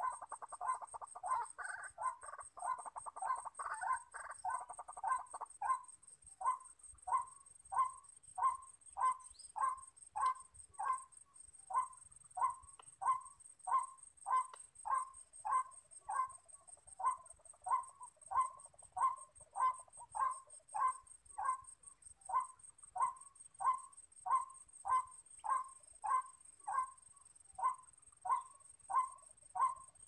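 White-breasted waterhen calling: a few seconds of dense, hurried croaking, then a long run of the repeated 'kwak' note at about two a second.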